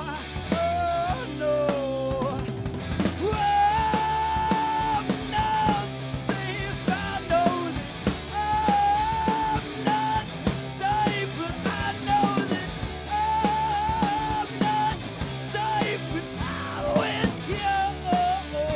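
A rock band playing live: electric guitar, electric bass and a drum kit keeping a steady beat, with a male lead singer at the microphone and a wavering melody line over the top.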